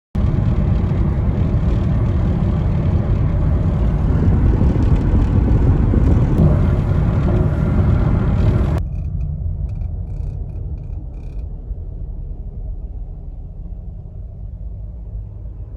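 Car noise: a loud, rushing rumble for about nine seconds cuts off abruptly, leaving a quieter low rumble.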